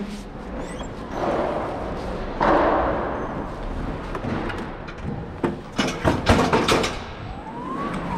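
Warehouse clatter around an electric pallet truck being driven across a concrete floor: noisy swells early on, then a cluster of sharp knocks and rattles about two-thirds through, and a rising whine near the end.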